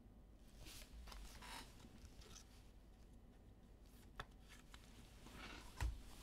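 Faint rustling and sliding of basketball trading cards and their packaging being handled, with a light click about four seconds in and a soft thump near the end.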